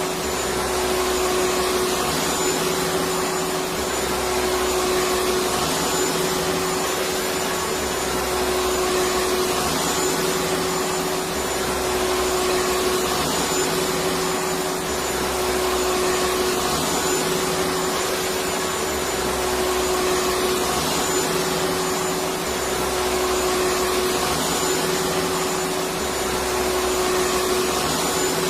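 Electric vacuum cleaner running steadily: a constant loud rush of air with a steady hum, and a low throb that swells and fades about every three seconds.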